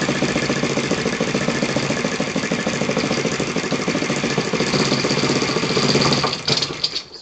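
Freshly rebuilt Yamada FZ 53 four-stroke model aircraft engine running steadily with its propeller turning, then faltering about six seconds in and stopping just before the end.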